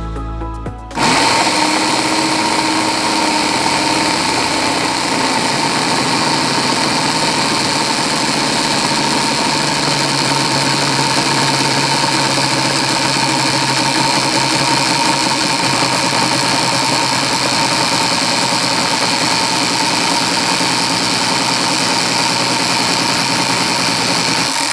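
DeWalt air compressor's brushed universal motor switched on about a second in and running steadily with a constant whine, its exposed commutator arcing and throwing sparks at the brushes: the fault still isn't fixed.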